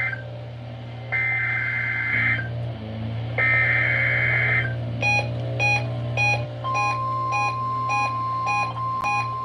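NOAA Weather Radio Emergency Alert System test tones received on a Reecom R1630C weather radio: two one-second bursts of the SAME digital header, a harsh two-tone data warble, in the first half. Then the receiver's alert beeps repeat about twice a second, and about two-thirds through the steady 1050 Hz warning alarm tone comes in under them.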